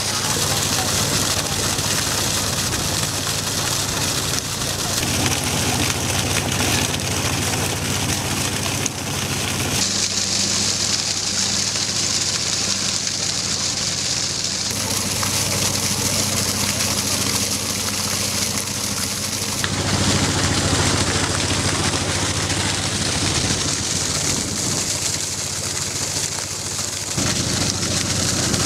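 Water jetting from a tanker truck's hose and splashing steadily into a pool of water, over the low steady hum of the truck's engine. The sound shifts abruptly several times.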